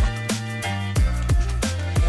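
Background music: an electronic track with a steady beat and deep bass hits that slide down in pitch.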